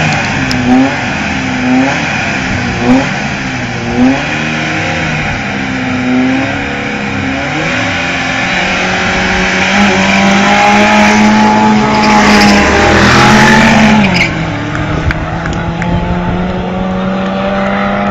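Drag-racing car engines revving at the start line in short blips about once a second, then held at high revs and rising, with a rush of tyre noise. The pitch drops about fourteen seconds in as the cars launch and pull away.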